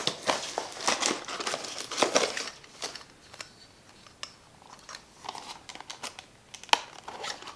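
Plastic packaging crinkling and clicking as it is handled. The crackling is dense for the first two seconds or so, then thins to scattered sharp clicks.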